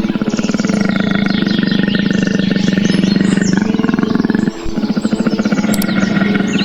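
A large animal's low, rattling roar-like call, one long stretch with a short break about four and a half seconds in before it starts again.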